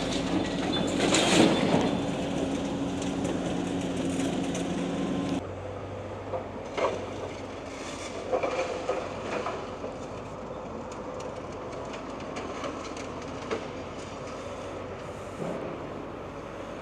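Demolition excavator working a grab through steel and concrete rubble. Its engine hums steadily, and scattered metal clanks and knocks come from the debris being sorted, the sound dropping to a lower rumble about five seconds in.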